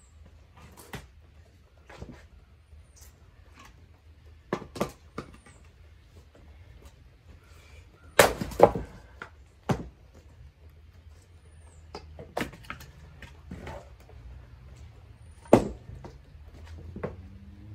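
Firewood being split by hand: sharp wooden knocks and cracks at uneven intervals, loudest as a quick pair about eight seconds in and another single crack near the end.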